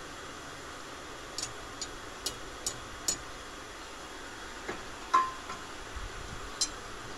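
Steady hiss with scattered sharp, light clicks, about eight of them unevenly spaced. About five seconds in comes a louder metallic clink that rings briefly.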